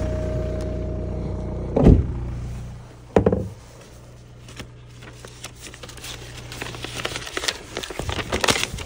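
A Volkswagen Beetle's engine idling, then a car door shutting with a thud about two seconds in and a second thump a moment later, after which the engine hum drops away. Paper then rustles and crinkles as a registration envelope is handled.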